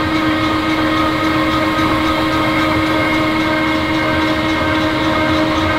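Mammoth 800 RC Genie concrete floor grinder running steadily while wet-grinding a concrete floor under water. A loud, even motor whine with several held tones over a low rumble.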